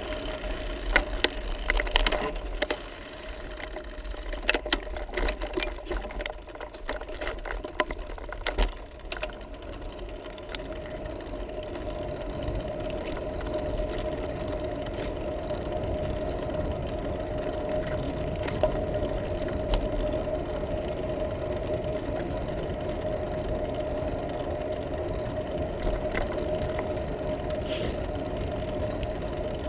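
Bicycle ride picked up by a camera mounted on the bike: knocks and rattles as it jolts over a rough sandy track, giving way about ten seconds in to a steady hum of tyres rolling on smooth asphalt.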